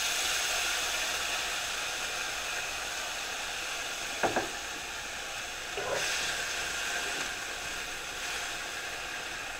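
Diced onion sizzling in a hot cast-iron skillet, a steady hiss that eases off slowly as it starts to sauté. A couple of light knocks come about four and six seconds in.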